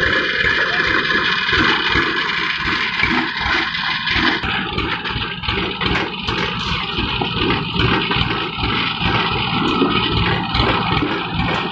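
Engine of a farm machine running steadily under load, with a fast even low pulsing; about four seconds in, a higher hiss drops away.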